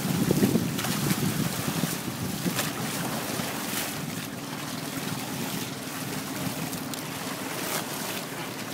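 Wind buffeting the microphone over the rush of water along the hull of a small sailboat under sail. The rumble is heaviest in the first second, then settles to a steadier hiss with a few brief splashes.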